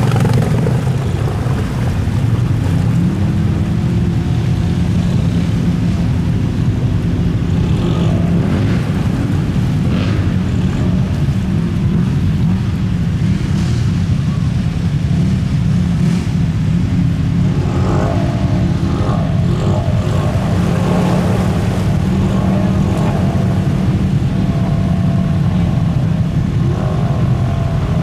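Off-road vehicle engine running steadily and close, a low continuous drone.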